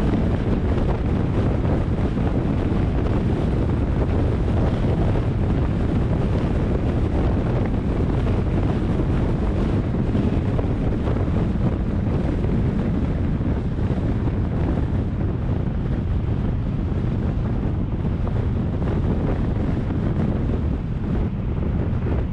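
Steady wind buffeting on the microphone: a loud, unbroken low rushing rumble.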